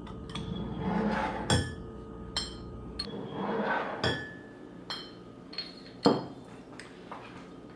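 Glass beer bottles clinking and knocking as they are handled and filled during bottling: a string of sharp clinks about a second apart, with softer swells of noise in between.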